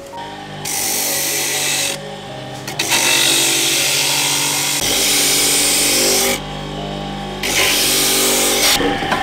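Electric coconut grater shredding coconut meat as a coconut half is pressed against its spinning toothed rotor: a loud rasping hiss in three stretches, easing off in between when the pressure lets up.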